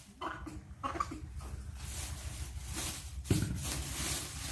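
Plastic bag rustling and handling noise, with a sharp knock about three seconds in, over a steady low hum.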